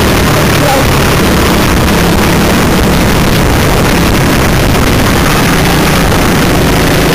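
Go-kart engine running hard at racing speed, recorded onboard: a loud, steady engine drone under a dense hiss.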